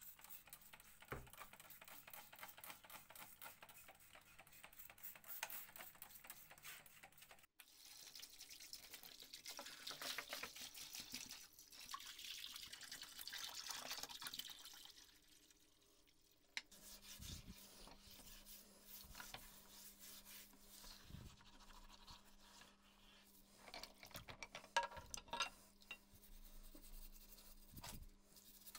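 Water poured into a plastic tub over the metal parts of an old potato slicer, a splashing hiss that lasts several seconds and then cuts off. Then steel wool scrubbing a metal rod in the water: short scratching strokes over a low steady hum.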